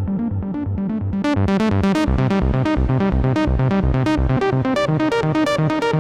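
Behringer Model D analog synthesizer playing a fast repeating sequence of notes over a steady low pulse. About a second in, the tone opens up and turns much brighter.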